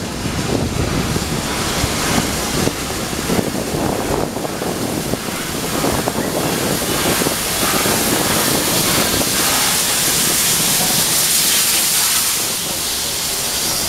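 Victorian Railways R class 4-6-4 steam locomotive R711 passing close by, chuffing with hissing steam. The hiss grows loud as the engine goes by and eases near the end as its tender passes.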